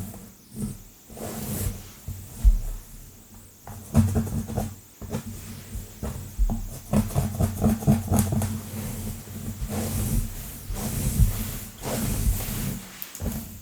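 Long fingernails scratching fast and roughly through hair and over the scalp, close to the microphone. The strokes are quick and irregular, with rough, rustling friction.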